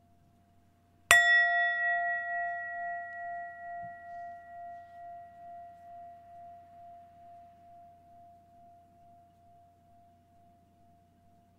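A singing bowl struck once about a second in, ringing on in one long, wavering tone that slowly fades away.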